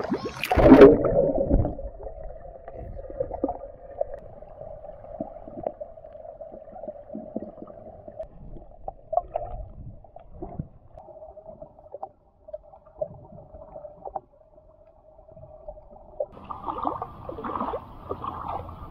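A splash as the microphone plunges under the swimming-pool water, then the muffled underwater sound of the pool with a steady hum. Near the end, choppier water sloshing comes in as it reaches the shallow end.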